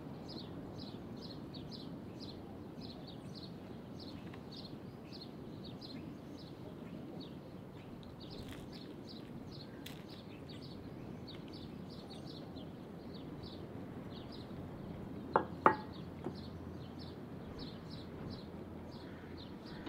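Small birds chirping over and over, several chirps a second, against a low outdoor hum. About fifteen seconds in come two sharp knocks close together, the loudest sounds here.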